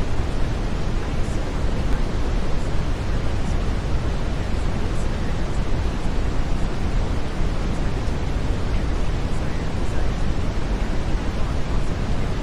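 Steady brown noise: an even, deep hiss weighted toward the low end, unchanging throughout.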